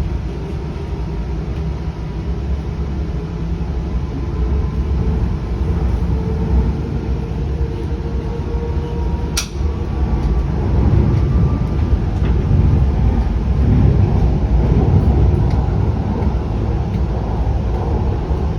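Link light-rail train heard from inside the car while moving: a steady low rumble of wheels on track with a faint steady whine, growing louder in the second half, and a single sharp click about nine seconds in.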